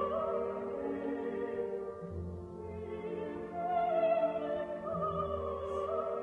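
Operatic orchestral music with a singing voice holding long, wavering notes over deep sustained bass notes that come and go.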